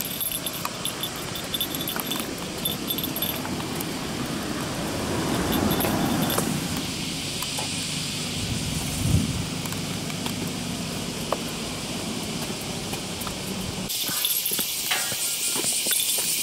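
Roadside ambience: a vehicle passes in the middle, rising and falling, over a steady high hiss of insects. After a sudden change near the end, the insect hiss is louder and brighter.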